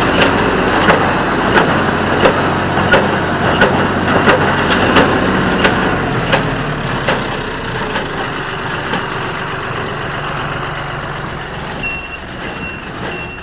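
John Deere 5055E diesel tractor running a Massey Ferguson 1837 small square baler, the baler's plunger knocking about every 0.7 seconds over the steady engine; the knocks fade out about halfway through. Near the end a high beeping starts, repeating in short pulses.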